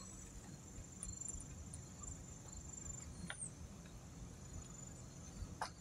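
Faint, steady high-pitched insect trill, with a low rumble beneath it and two short clicks, the louder one near the end.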